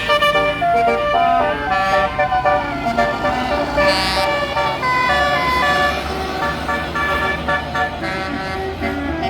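A bus's basuri horn playing a melody: a run of steady horn notes that change pitch in steps, one after another, over a low engine rumble.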